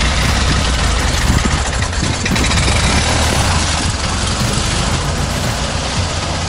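Engine of a homemade buggy running, then the buggy pulls away and its engine sound grows fainter after about two seconds as it moves off.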